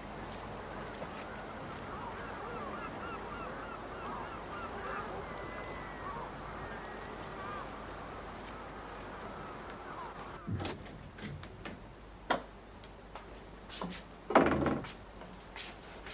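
Birds calling, many short calls rising and falling in pitch, over a steady background noise. About two-thirds of the way through, the calls give way to a string of separate knocks and thumps, with the loudest heavy thud near the end.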